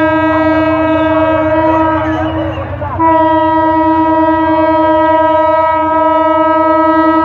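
Diesel locomotive horn blowing on one steady note in two long blasts, with a brief break about three seconds in, over a low rumble.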